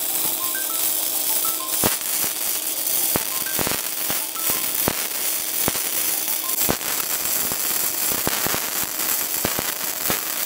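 Gasless flux-core MIG welding arc from an Ecomig 200 mini welder at about 146 amps, laying a bead on thick steel. It crackles and spatters steadily with many sharp pops, over a faint steady hum.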